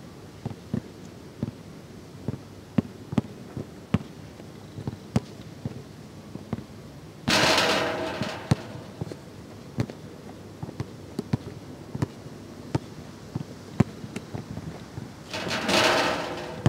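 A basketball being dribbled on an outdoor hard court: a series of sharp, irregular bounces. Twice, about seven seconds in and near the end, a louder rattling crash that dies away over about a second as a shot strikes the metal backboard and rim.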